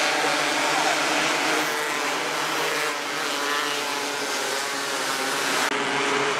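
A pack of 270cc micro sprint cars racing on a dirt oval, their single-cylinder motorcycle engines running flat out together in a dense, steady drone of overlapping engine notes.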